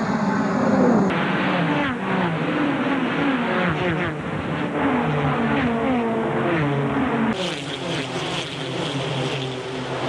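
Goody's Dash Series race car engines at racing speed, several cars passing one after another, each engine note falling in pitch as it goes by. The sound changes abruptly twice, about a second in and past the seventh second, where different race clips are joined.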